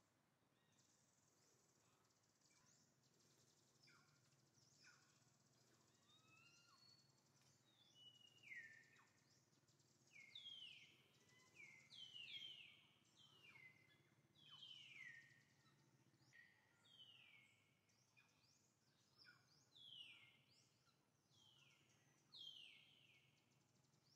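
Faint series of short high-pitched calls, each sliding down in pitch, repeated about once a second from about eight seconds in.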